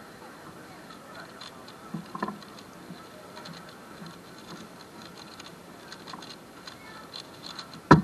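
Valk 3 speedcube being turned very fast during a speedsolve, a stream of light, quick plastic clicks. Near the end comes one loud slap as both hands come down on the Speed Stacks timer pads to stop the timer.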